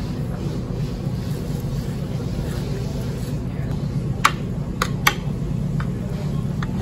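Metal spoon clinking against a ceramic plate while scooping fried rice: three sharp clinks a little past halfway, then two fainter ones near the end. A steady low background hum runs underneath.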